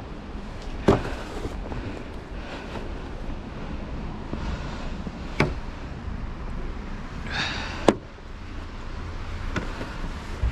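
Four sharp knocks a few seconds apart over a steady low rumble, with a brief high squeak just before the third knock.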